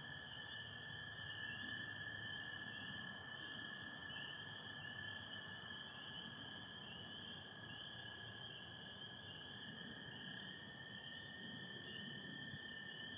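Chorus of spring peepers, many overlapping short, high, rising peeps, over the steady, lower, unbroken trill of American toads.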